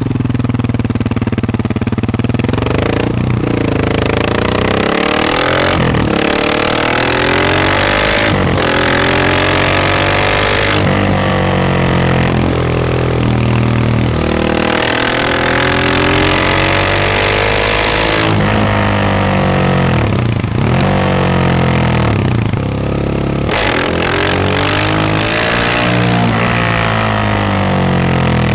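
KTM 690 SMC R's single-cylinder engine through a Wings exhaust, pulling up through the gears. The revs climb and then drop back sharply at each shift or roll-off, many times over.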